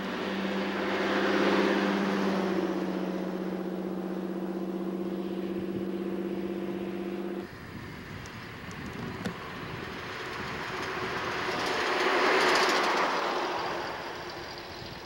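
Two vintage cars driving past one after another, each a swell of engine and tyre noise that rises and fades: an open roadster about a second and a half in, then a yellow 1930s car, loudest near the end. A steady hum under the first pass cuts off abruptly about halfway through.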